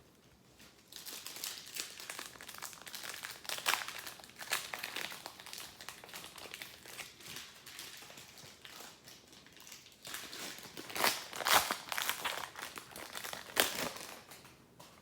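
Crinkling and rustling of a foil trading-card pack wrapper being handled, in two spells: one of about eight seconds, then after a short pause one of about four seconds.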